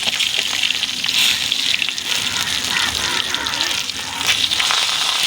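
Banana-leaf-wrapped fish parcels frying in coconut oil in a kadai: a steady sizzling hiss with fine crackles.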